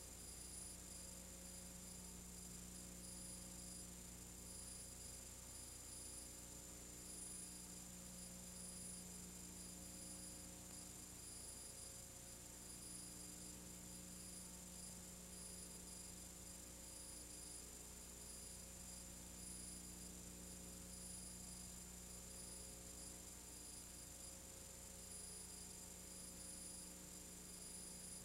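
Near silence: a steady low electrical hum with faint hiss and a faint high whine, unchanging throughout.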